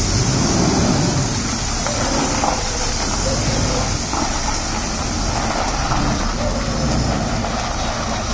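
Steady engine rumble from a lorry, with indistinct voices in the background.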